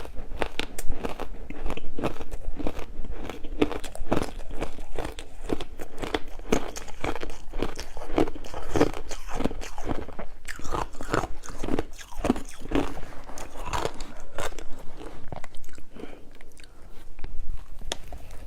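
Close-up crunching and chewing of crushed ice, a rapid irregular run of crisp bites.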